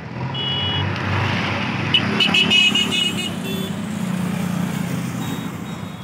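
Diesel engine of a JCB 3DX backhoe loader running and pulling as the machine moves, swelling and easing off through the middle. A few short high-pitched beeps and clicks come about two to three seconds in.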